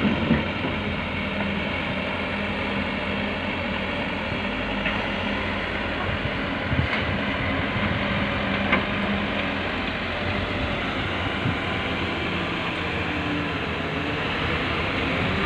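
Heavy-machinery diesel engine running steadily, with a few short knocks about 7 and 9 seconds in.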